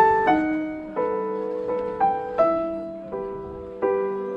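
Background music: a piano plays slow chords and melody notes, each struck note fading away, with a new chord about every two-thirds of a second.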